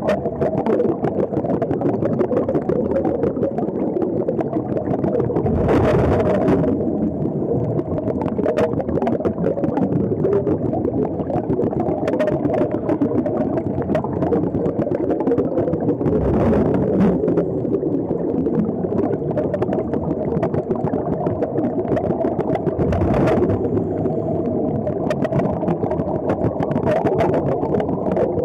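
Underwater recording: a steady engine drone carried through the water, with louder rushes of bubbles four times, every five or six seconds.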